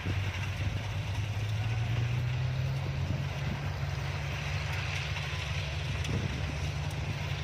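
Yanmar YH-850 combine harvester running, its diesel engine giving a steady low note that rises slightly in pitch in the first couple of seconds and then holds, over a constant hiss.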